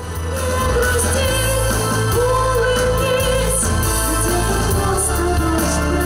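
A boy singing a pop song into a microphone over a backing track, holding notes with a slight vibrato above a steady bass.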